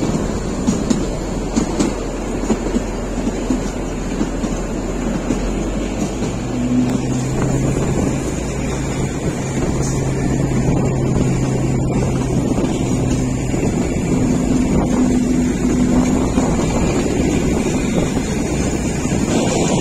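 Kalka–Shimla narrow-gauge toy train running: a steady rumble of the moving carriage, with wind buffeting the microphone. A low steady hum comes in about six seconds in and fades around sixteen seconds.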